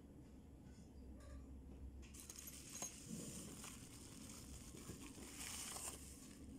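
Plastic bubble wrap crinkling and rustling faintly as an air drill is pulled out of it, starting about two seconds in and stopping near the end, with a few small clicks.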